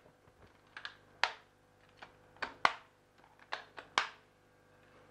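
Sharp plastic clicks and knocks, about seven in a few seconds, as the top of a SunSun external canister filter is fitted onto its plastic housing.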